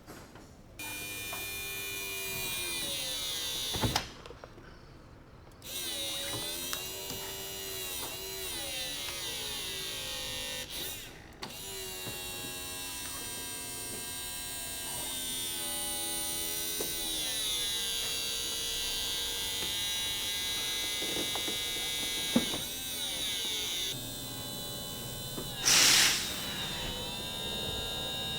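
Electric hydraulic pump of a Ferrari 360 Spider's convertible-top system running, its whine sliding up and down in pitch as the load changes, cutting out briefly about four seconds in. A short loud burst of noise comes near the end.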